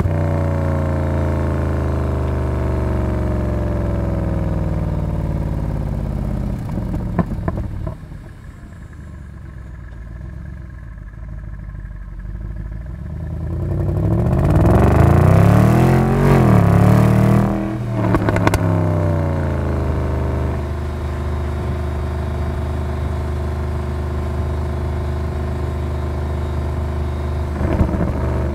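Mercedes-Benz SLS AMG's naturally aspirated V8 exhaust, heard close at the rear bumper on a drive. It starts with a steady drone and a few pops about seven seconds in, then goes quieter. It swells into a loud run up and down through the revs around fourteen to eighteen seconds in, ends with more crackling pops from back pressure, and settles to a steady drone.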